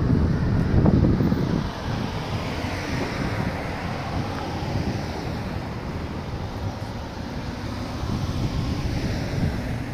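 Outdoor traffic ambience: wind buffets the microphone for the first couple of seconds, then a steady hiss of passing vehicles, with a car swelling and fading as it goes by and another near the end.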